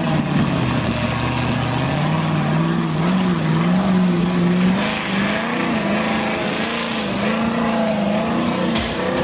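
V8 engine of an off-road 4x4 pickup revving hard under load as it climbs over rocks, its pitch rising and falling again and again, with tyres scrabbling on loose stones. A sharp knock near the end.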